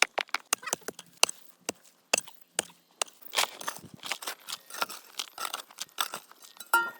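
A rapid, irregular run of sharp clicks and clinks, several a second, of hard objects knocking and scraping against each other.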